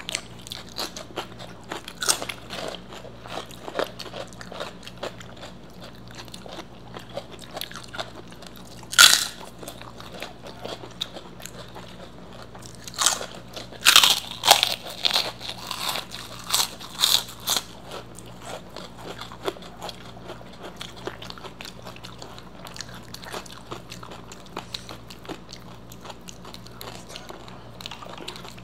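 Close-miked eating by hand: chewing and biting crisp fried food. Soft chewing clicks run throughout, with one loud crunch about nine seconds in and a run of loud crunches from about thirteen to seventeen seconds.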